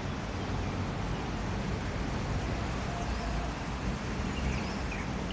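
Steady low outdoor background rumble with a few faint high chirps from about three seconds in.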